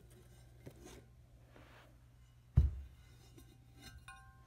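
Heavy enamelled cast-iron braiser lid set down on a rug with one dull thud about halfway through, amid light handling rustles. A brief faint metallic ring follows near the end as the lid is handled.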